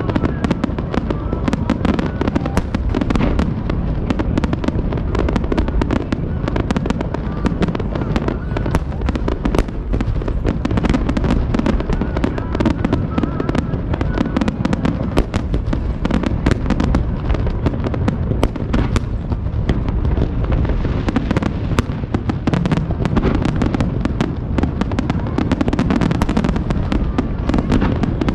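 Fireworks display: a dense, unbroken run of shell bursts and crackling, many bangs every second with no pause.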